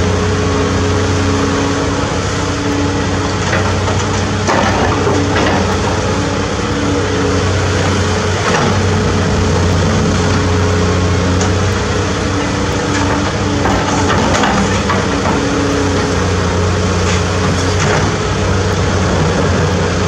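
CAT 336D2 excavator's diesel engine running steadily under digging load, with scattered cracks and scrapes as the bucket works into rock and broken stone.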